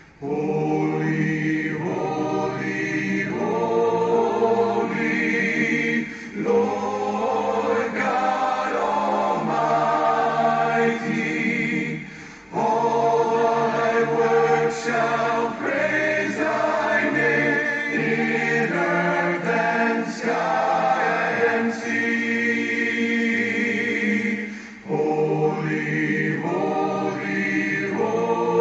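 A choir singing a hymn a cappella, with no instruments, in phrases of several seconds broken by short pauses.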